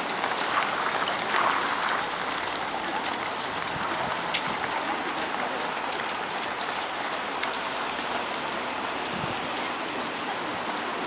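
Footsteps of many road-race runners on asphalt: a steady mass of shoe footfalls with many small ticks, as a dense pack passes.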